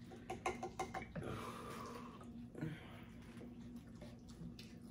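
Faint eating sounds over a seafood boil: scattered small clicks and crackles, with a soft noisy sound lasting about a second, starting about a second in.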